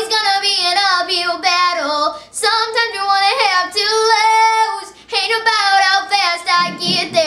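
A young girl singing solo without accompaniment, in three sustained phrases with short breaks for breath about two and five seconds in.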